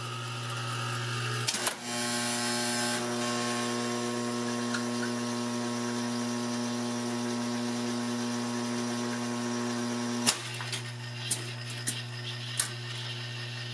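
Vintage jukebox record-changing mechanism over a steady electrical hum: the record carousel's motor starts about two seconds in and runs at a steady pitch while the ring of records turns to the selection, stops with a sharp clunk about ten seconds in, then a few clicks and clunks follow as the transfer arm lifts the record and sets it on the turntable.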